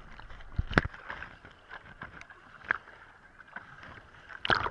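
Hands paddling a board through seawater: low sloshing, with short sharp splashes from the strokes about a second in, near the middle and at the end.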